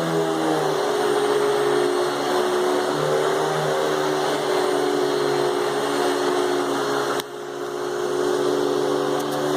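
Hoover Spectrum canister vacuum cleaner running steadily with a whine. About seven seconds in, the sound drops sharply, then builds back up over a second or so.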